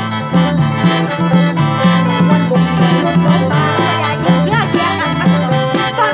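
Live mor lam music over a sound system: a reedy, held khaen melody over a steady bass and drum beat, with no singing.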